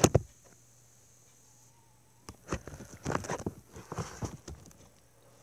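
Handling noise: a sharp knock at the start, then after a quiet couple of seconds a cluster of irregular clicks and rustles lasting about two seconds.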